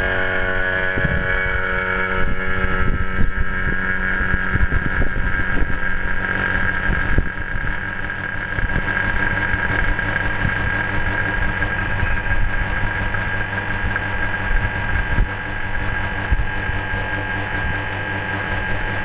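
Vacuum pump running steadily as it draws a vacuum on a laboratory planetary mixer's sealed bowl: an even mechanical hum with steady tones. A few of the higher tones fade out in the first few seconds.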